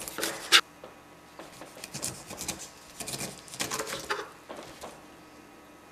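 Kitchen knife slicing down through pineapple rind, a crisp scraping cut that ends in a sharp tap on the plastic cutting board about half a second in. Two more scraping strokes follow, between about one and a half and four seconds in.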